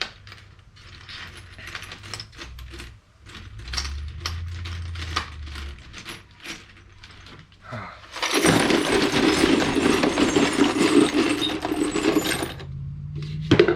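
Loose steel nuts and bolts in a hardware bin clinking as a hand picks through them, with many separate small metallic clicks. About eight seconds in, the whole pile rattles loudly and continuously for about four seconds as the bolts are churned together.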